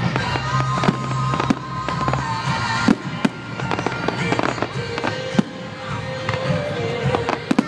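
Display fireworks going off: shells and ground fountains bursting with sharp bangs every second or so over a continuous crackling, hissing bed. Music plays underneath throughout.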